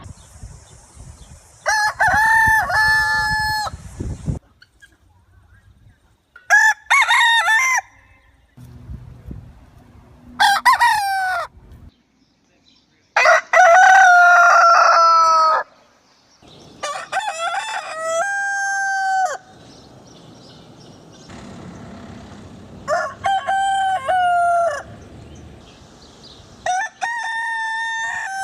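A rooster crowing over and over: about seven cock-a-doodle-doos a few seconds apart, each one to two and a half seconds long, some starting and cutting off suddenly.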